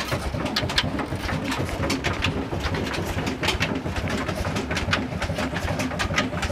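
Stone flour mill (chakki) running: a steady low rumble with rapid, irregular clicking as the grain feeds through.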